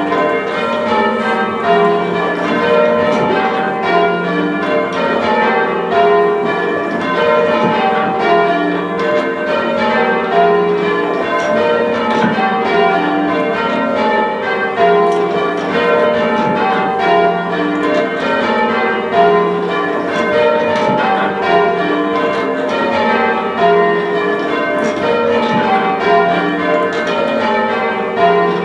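A ring of six church bells rung full circle in change ringing. The strikes follow one another in a steady, even stream, each bell's tone lingering as the pitches step through repeating rows.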